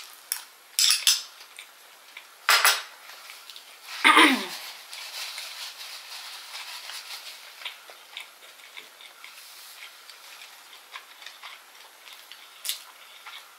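Metal spoon clinking and scraping against a small glass bowl, with a few sharp, loud clinks in the first five seconds, the loudest about four seconds in, then scattered faint clicks.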